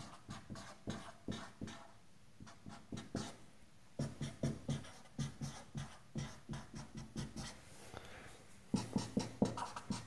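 Dry-erase marker writing on a whiteboard: a quick, irregular run of short strokes and taps, busier near the end.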